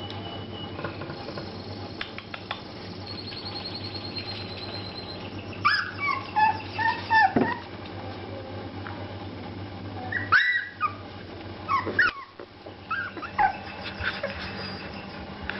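Shar Pei puppies giving several short, high-pitched yips and whines, the first about six seconds in, the last near the end.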